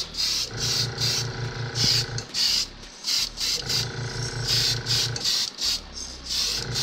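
Small airbrush compressor running with a rapid, even pulsing, starting and stopping in runs of a second or two, with the hiss of the airbrush spraying a light coat of pearl silver paint.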